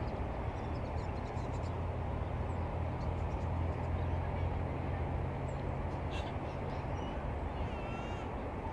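Steady low rumble of distant freeway traffic heard from high above, swelling slightly midway. A bird gives a short warbling call near the end.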